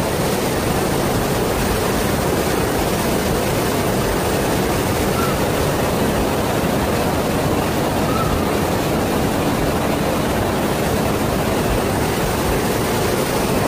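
Floodwater rushing through a street as a fast torrent: a steady, loud rush of churning water.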